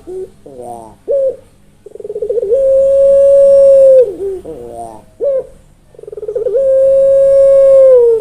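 A Barbary dove (puter) cooing twice: each call opens with a quick stutter, swells into a long, even coo held for about a second and a half that drops off at its end, and trails into a few short rolling notes.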